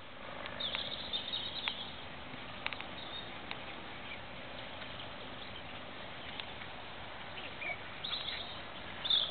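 Birds chirping over steady outdoor background noise, loudest early on and again near the end, with a few short clicks in the first few seconds.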